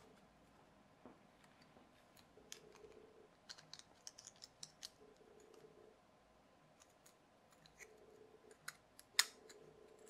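Faint, scattered clicks and taps of the small plastic and metal parts of a DIY LED fidget spinner kit being handled and pressed together, with a sharper click about nine seconds in.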